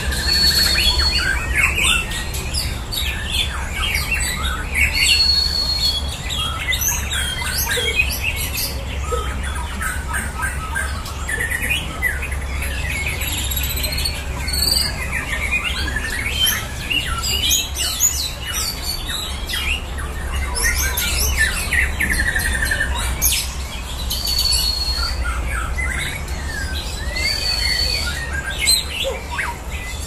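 Several caged white-rumped shamas (murai batu) singing at once in a song duel: a dense, overlapping stream of whistles, chirps and trills, with a short high held whistle repeated a few times. A steady low rumble runs underneath.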